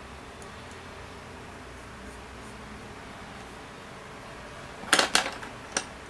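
Wooden coloured pencils clattering against each other on a wooden tabletop as one pencil is put down and another picked up: three sharp clicks close together about five seconds in, then one more, over a faint steady hiss.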